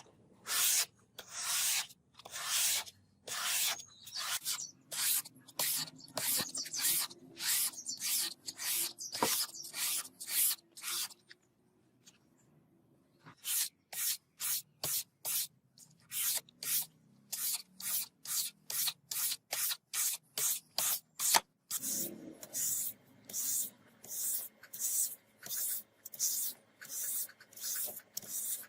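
Rusted steel katana blade being rubbed by hand with an abrasive in even back-and-forth scraping strokes, about one and a half a second. There is a short pause about halfway through, and the strokes come a little faster near the end.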